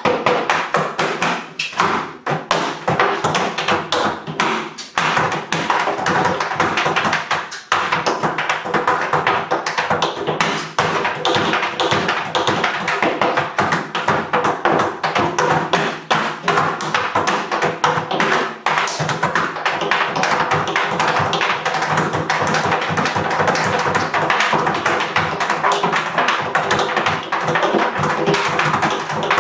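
Tap shoes striking a folding wooden tap board in a solo rhythm tap dance, a dense run of rapid taps. There are a few brief breaks in the flow, about 2, 5 and 7.5 seconds in.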